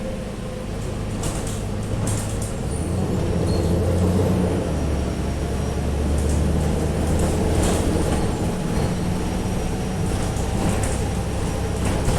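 Alexander Dennis Trident bus's diesel engine running under way, with a faint, thin, high turbocharger whistle over the low engine hum. Now and then there is a brief rattle.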